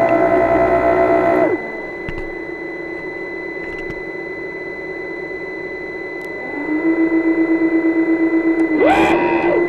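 Small electric motors whining. A high whine holds steady, then winds down about a second and a half in, leaving a quieter hum with a steady high tone. About six and a half seconds in, a lower whine rises and holds with a fast pulsing, and near the end a higher whine briefly rises and falls.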